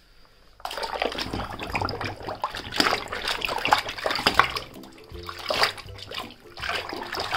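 A hand splashing and sloshing water while swishing a toy vehicle through it, starting about half a second in and going in uneven surges.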